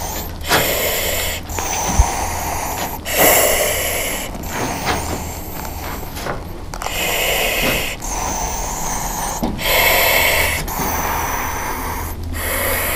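Breathing through a firefighter's SCBA face mask: a hiss from the air regulator on each breath, about every two to three seconds, over a steady low hum.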